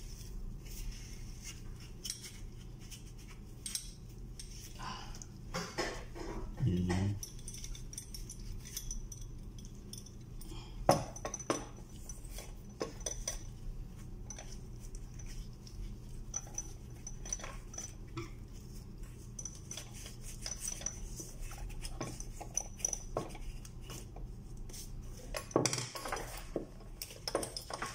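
Light clicks and clinks of a metal lamp holder and its parts being handled and set down on a countertop, with one sharper knock about eleven seconds in, over a low steady hum.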